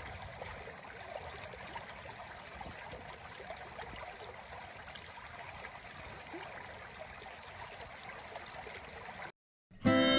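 Steady, even rushing noise with faint scattered ticks in it, which breaks off about nine seconds in. After a short silence, plucked-string music starts near the end.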